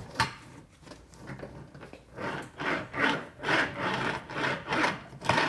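Woku hand roller bender being rolled back and forth along the edge of a metal standing seam roofing panel: a sharp click near the start, then from about two seconds in repeated scraping, rubbing strokes about two a second as the wheels press the first slight crease into the panel.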